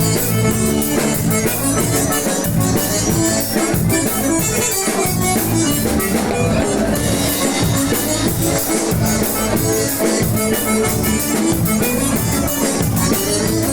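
A band playing an instrumental passage of an upbeat song, with no singing and a steady drum beat.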